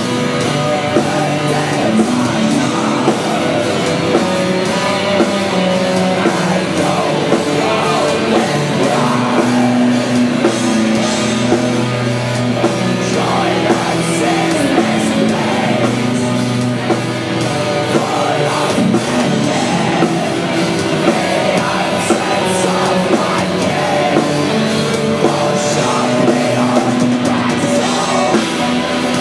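Black metal band playing live, loud and continuous, with vocals over dense drumming.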